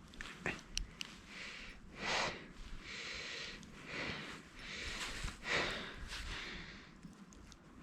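A person's breathing and sniffing close to the microphone, in slow swells a few seconds apart, with a few small clicks in the first second.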